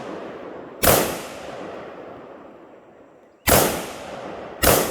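Three gunshots, spaced unevenly, each followed by a long rolling echo that dies away over a second or more.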